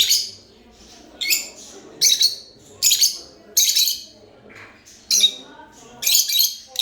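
Lovebirds chirping in a string of short, harsh, high bursts, about eight in a row, spaced unevenly with brief gaps between them.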